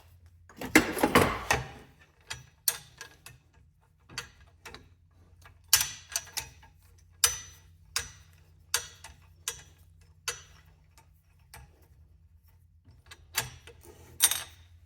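Metal parts of a cam-lock V-block jig clicking and clinking as they are handled and fitted: a cluster of knocks about a second in, then scattered single clicks.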